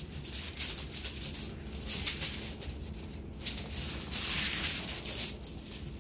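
Aluminium foil crinkling and rustling with wet rubbing, as gloved hands work Worcestershire sauce into a raw T-bone steak on the foil, with a longer rustle about four seconds in.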